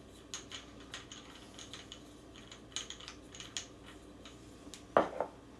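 Faint scattered clicks and small metal ticks of an air pistol being handled as its screw-on suppressor is taken off, with one sharper knock about five seconds in.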